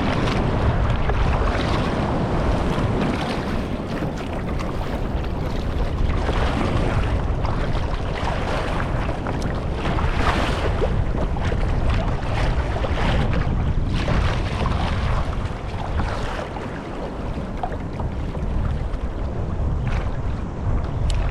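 Wind buffeting the microphone over the sea, with water splashing and slapping against a kayak's hull at irregular moments.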